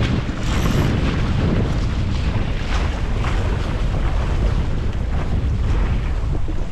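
Wind buffeting the microphone over water rushing and splashing along the hull of a small wooden proa under sail.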